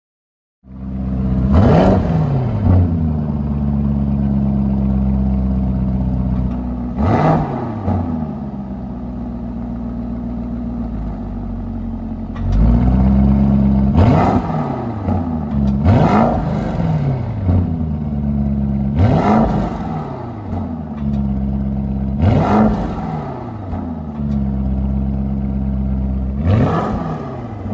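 Lamborghini Urus Performante's twin-turbo V8 running at idle through its twin titanium tailpipes and revved in a series of short, sharp throttle blips, each rising and dropping straight back, with a few seconds of idle between them.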